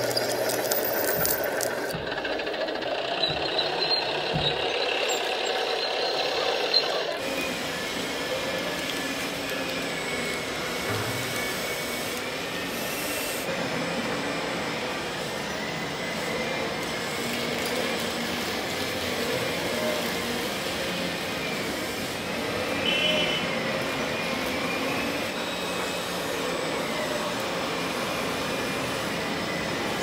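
Radio-controlled model road roller rolling over loose grit, a steady rasping crunch with small clicks. After a cut about seven seconds in, several RC excavators and dump trucks working in sand, their small motors whining and rising and falling in pitch.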